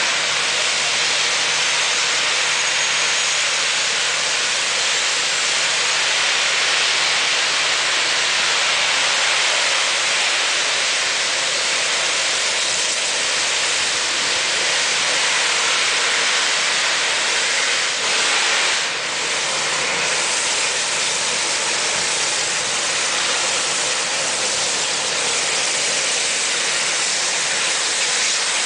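Steady hiss of escaping steam from the steam locomotive 34027 Taw Valley, a rebuilt Bulleid West Country class Pacific, with no exhaust beat to be heard. The level dips briefly about two-thirds of the way through.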